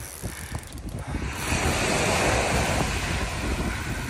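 Small surf waves washing onto a sandy beach, with wind buffeting the microphone; a wash swells and fades in the middle.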